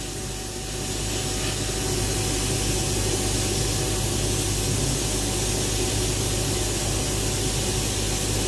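Sandblasting cabinet blasting aluminium oxide grit onto a metal cylinder: a steady hiss of air and abrasive that grows a little louder over the first two seconds, over a steady low hum.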